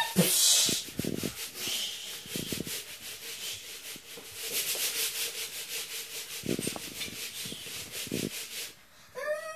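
Lego city being shaken back and forth on its base: a fast, rhythmic scraping rub with scattered knocks, stopping abruptly near the end.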